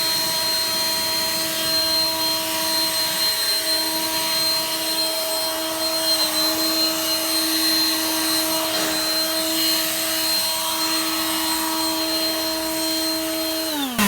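WORX 20V Turbine cordless leaf blower running steadily with a whining fan and rushing air. Near the end it winds down with a falling pitch and stops.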